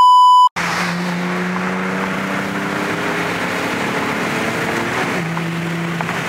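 A censor bleep, a steady beep lasting about half a second, then an Infiniti G37's VQ37 V6 engine droning steadily under way. The engine's pitch dips slightly about five seconds in.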